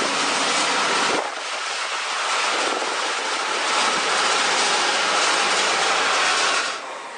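Sapporo Municipal Subway rubber-tyred train running by at close range: a steady rushing noise with a faint whine. The sound changes abruptly about a second in, then eases off near the end.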